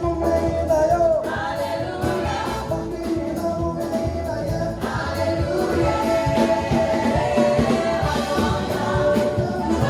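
Live gospel praise music: singing voices with a choir over a band with bass and drums.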